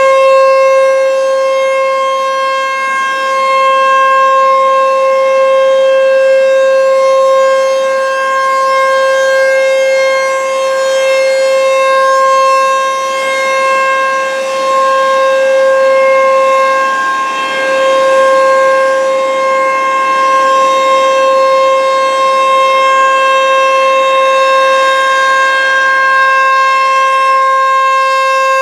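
American Signal T-135 AC/DC rotating outdoor warning siren sounding a steady, loud single tone during a test. The pitch holds level while the loudness swells and fades every few seconds as the rotating horn sweeps past.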